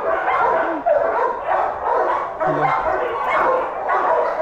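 Many shelter dogs barking and yipping at once, a continuous overlapping din of calls.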